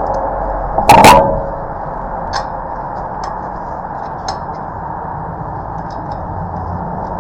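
A single loud, sharp clank about a second in, then a few light clicks, over a steady background hum.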